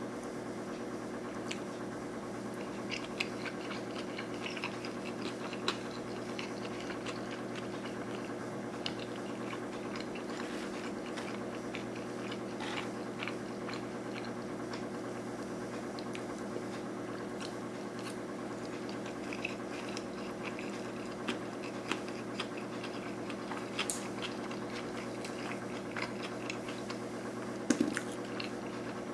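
Close-miked chewing of sushi rolls: soft, wet mouth clicks and squishes scattered throughout, with a few sharper clicks near the end. A steady hum runs underneath.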